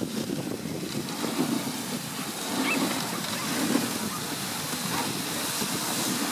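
Dog sled gliding over glacier snow: a steady rushing hiss from the runners, with wind buffeting the microphone.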